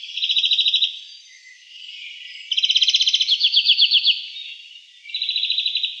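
A songbird singing in rapid trills: three phrases of quickly repeated notes, a short one at the start, a longer one from about two and a half seconds in that slows into falling notes at its end, and another near the end.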